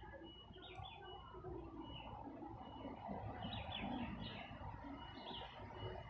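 Garden ambience: small birds chirping in short, repeated high calls, several a second at times, over a steady low background rumble.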